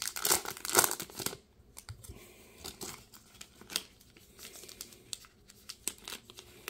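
Silver foil trading-card pack wrapper being torn open and crinkled by hand: a loud burst of tearing in the first second and a half, then quieter crinkling with a few sharp crackles as the foil is peeled back from the cards.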